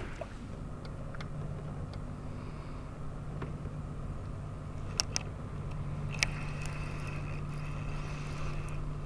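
Steady low electric hum of a bow-mount trolling motor holding the boat, with a few sharp clicks about five and six seconds in.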